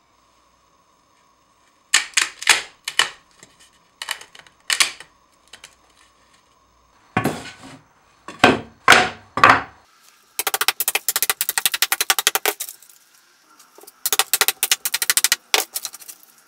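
Thin softwood slivers between closely spaced saw kerfs being snapped and knocked out to clear a half-lap joint. The first half has scattered sharp cracks and knocks. Then come two runs of rapid clicking, each about two seconds long, as the slivers break off one after another.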